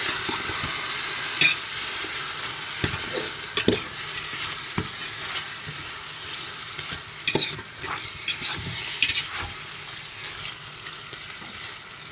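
Chicken pieces, onions and chickpeas sizzling in oil in a cooking pot as they are stirred, with a steady sizzle that slowly gets quieter and several sharp scrapes and knocks of the stirring spoon against the pot.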